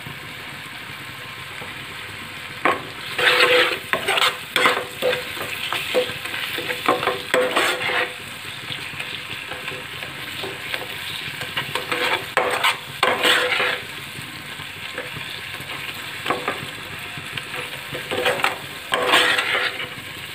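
Onion-tomato masala frying and sizzling in oil in a frying pan, stirred with a spoon that scrapes the pan in repeated bursts over a steady sizzle.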